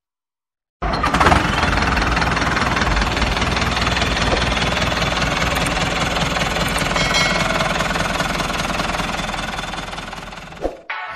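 Tractor engine sound, a steady diesel-like running with a rhythmic low knock, for a model HMT 5911 tractor pulling a disc harrow. It starts abruptly about a second in and cuts off just before the end.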